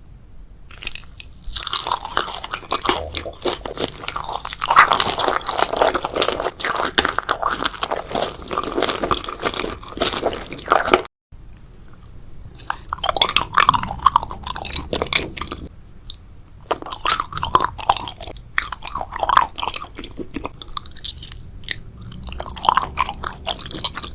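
Close-miked crunching and chewing of crisp food, dense and continuous for about ten seconds, then cut off abruptly and followed by separate bites and chews.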